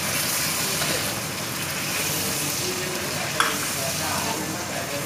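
Beef and freshly added yogurt sizzling in hot oil in a nonstick pan while a spatula stirs them together, with a steady frying hiss. A single sharp tap about three and a half seconds in.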